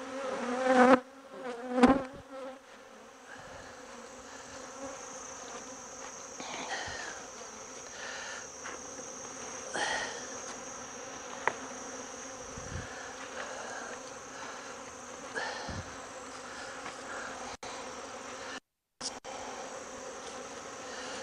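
Honey bees buzzing in a steady hum around an open hive, the colony a little upset from the frame handling. The buzzing is louder in the first two seconds.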